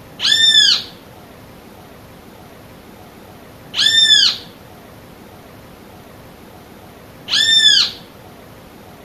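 Great kiskadee calling: three loud single arched calls, one about every three and a half seconds.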